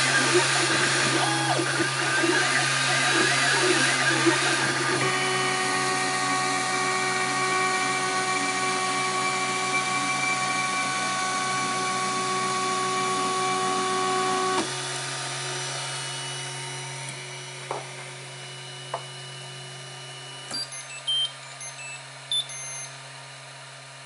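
MakerBot Replicator 2 3D printer's motors whining in shifting pitches as the print head lays down the last layers, then a steady whine that cuts off suddenly about two-thirds of the way through as the machine stops. A low fan hum carries on, with a few clicks and short high beeps near the end.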